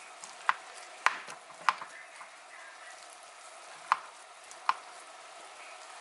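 Metal fork stirring eggs into grits in a stainless steel saucepan, clinking sharply against the pan five times with a pause in the middle, over a faint steady sizzle from the pan on the burner.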